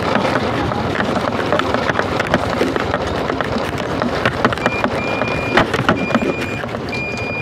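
Steady road and engine noise from a moving car, broken by frequent small knocks. From about two-thirds in, a high electronic beeper sounds in repeated tones.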